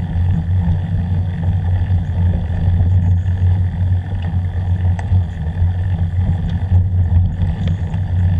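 Steady low rumble of wind buffeting and mount vibration on an action camera moving along a bumpy dirt trail, with a few faint ticks.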